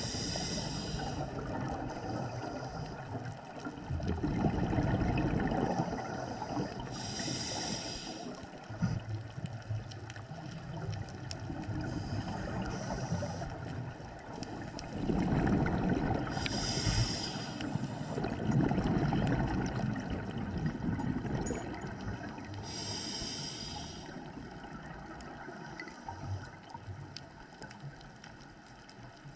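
Scuba diver breathing underwater through a regulator: a short hiss on each inhalation roughly every five seconds, and a low rush of exhaled bubbles between them.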